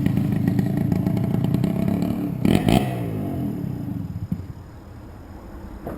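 An engine passing close by: a steady running note that swells to its loudest about two and a half seconds in, then drops in pitch and fades as it goes past.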